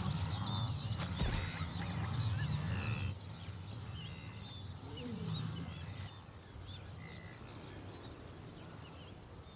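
Savanna ambience with many birds chirping and whistling over a rapid insect pulsing, about five pulses a second. Low grunting of a wildebeest herd is strongest for the first three seconds. The whole scene grows quieter from about six seconds in.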